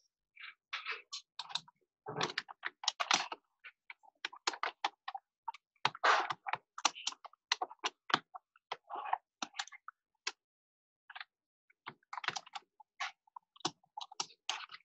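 Typing on a computer keyboard: irregular runs of key clicks with short pauses between them, heard through a video-call microphone.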